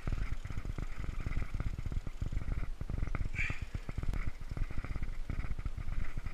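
Wind buffeting an action-camera microphone on the open sea: an irregular, rumbling flutter throughout, with a brief brighter hiss about three and a half seconds in.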